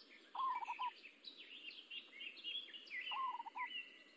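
Birds chirping: a short run of four or five quick notes comes twice, about half a second in and again about three seconds in, over many high, quick chirps throughout.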